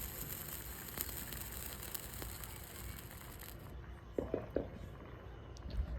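Hand-held sparklers fizzing and crackling, with a few scattered clicks. The high hiss drops away a little past halfway, and a few short squeaks come soon after.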